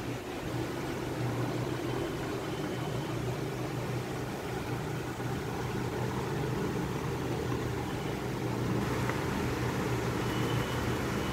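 Steady low mechanical hum with a faint rushing noise over it, unchanging throughout.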